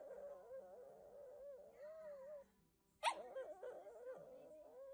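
Shih Tzu whining in a long, wavering high whine that stops a little over halfway through, then starts again with a sharp cry about three seconds in and goes on wavering.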